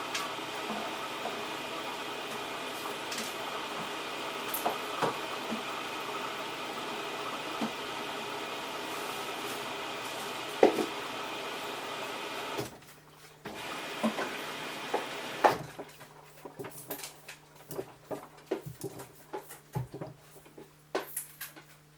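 Samsung washing machine at the start of its wash cycle: a steady hum for about twelve seconds, then the hum drops away and irregular clicks and knocks follow.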